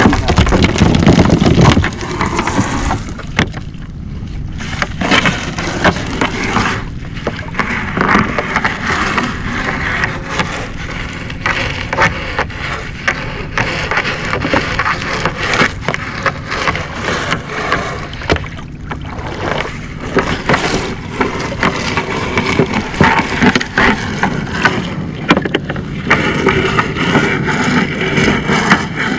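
Small fishing boat's engine running steadily, with frequent knocks and rattles as a crab gillnet is worked aboard.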